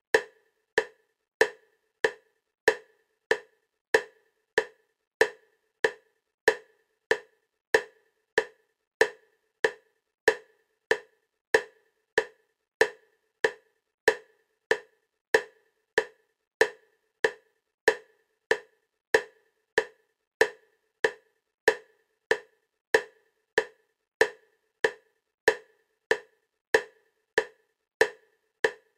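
EMDR bilateral stimulation clicks: a short, wood-block-like click repeating at a steady 96 beats a minute, alternating side to side between the ears.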